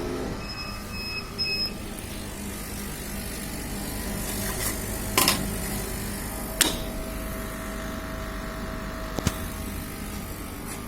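Steady hum of a CO2 laser engraving machine's equipment running, with three short high electronic beeps about a second in and a few sharp clicks later on.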